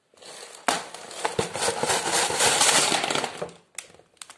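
Plastic bags of Lego bricks and paper instruction booklets tipped out onto a wooden floor: a sudden loud crash, then about three seconds of bricks clattering and bags crinkling as they slide and settle, and a few light clicks near the end.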